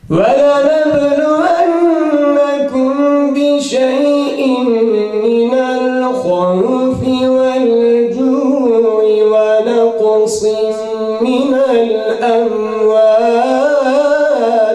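A young man's melodic Quran recitation (tilawah) in Arabic: one long unbroken, ornamented phrase whose pitch wavers and glides, stopping near the end.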